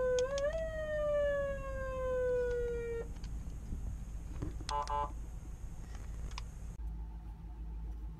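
Cheap aftermarket 5-tone electronic car siren sounding a wail through its speaker: the tone climbs, jumps up, then falls slowly and cuts off about three seconds in. A short burst of tones with clicks follows about five seconds in.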